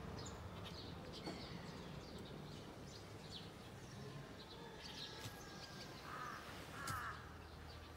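Birds calling: faint scattered chirps of small birds throughout, with two short, rougher calls about six and seven seconds in.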